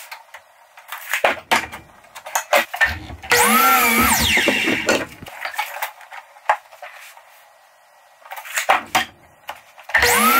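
Hitachi miter saw motor running for about two seconds, its whine rising as it spins up and falling as the blade winds down, about three seconds in, with a second start just before the end. Scattered clicks and knocks from handling the board and tape measure come before and between the runs.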